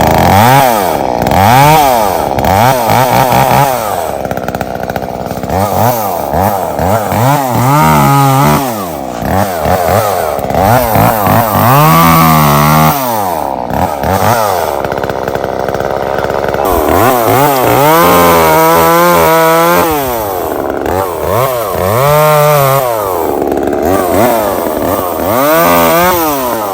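Echo CS-3450 two-stroke chainsaw, fitted with a freshly replaced and tuned carburetor, revving up and down over and over, with several stretches held at high speed as it cuts wood with a dull chain. It picks up cleanly and keeps running, showing the carburetor repair has worked.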